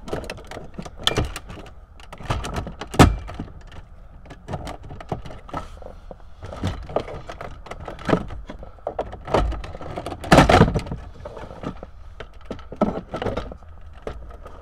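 Plastic dash bezel of a 2008 Jeep Grand Cherokee being pried loose with a plastic trim tool. Its retaining clips give a series of sharp clicks and snaps as they pop free, the loudest about three seconds in and again around ten seconds in, with plastic rattling and knocking between.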